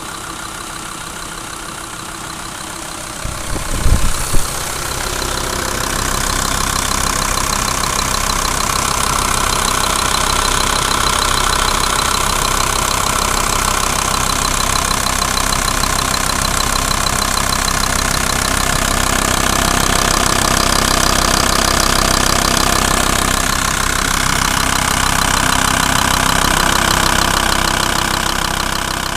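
Volkswagen 2.5 TDI (AHD) inline five-cylinder diesel idling with a knock from the area of its Bosch injection pump. A few loud thumps come about four seconds in, after which the engine sounds louder.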